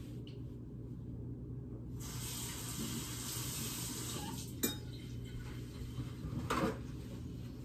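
Kitchen tap running for about two and a half seconds, then shut off with a sharp click; a short squeak or scrape follows about two seconds later.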